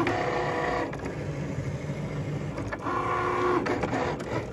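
Cricut Maker cutting machine at work: its motors whine in two short spells as the tool carriage and mat move, once at the start and again about three seconds in, over a steady mechanical rasp.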